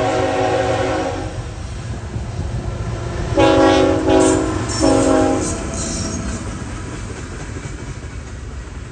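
Norfolk Southern locomotive NS 3675's multi-chime air horn playing a horn show: a long blast cuts off about a second in, then a quick cluster of short blasts comes between about three and five and a half seconds in. Under it the train runs past with a steady low rumble that slowly fades.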